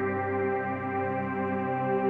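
Background music: soft ambient synthesizer pad of long held chords.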